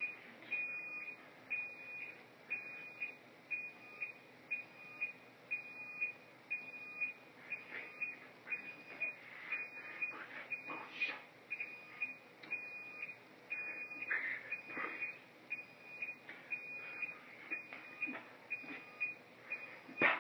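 A short, high electronic beep repeating at a steady pace, over faint background noise.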